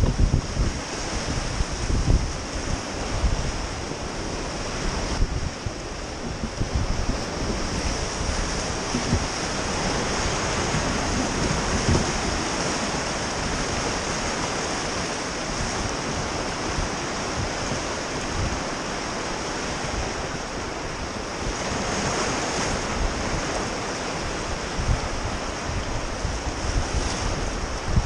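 Whitewater rapids rushing steadily around a raft, with wind on the microphone rumbling in irregular low gusts.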